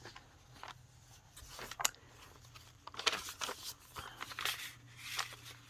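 Paper rustling and light taps in scattered short strokes as the pages and cards of a handmade junk journal are turned and handled, with a faint steady low hum underneath.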